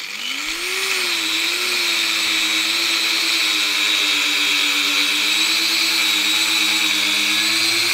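Electric angle grinder with a cutting disc slicing through a rubber off-road tyre: the motor spins up over about the first second to a high whine, then runs steadily under load with a hissing, grinding cut.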